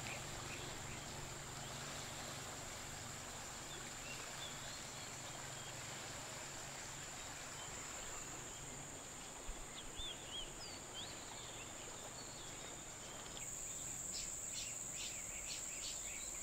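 Steady high-pitched drone of jungle insects, with a few short bird chirps about halfway through. Near the end the drone gets louder and a quick run of repeated chirps joins it.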